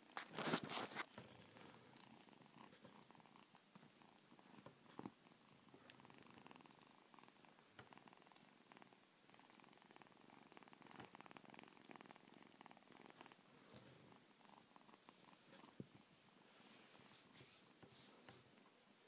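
A kitten purring softly and steadily while it suckles.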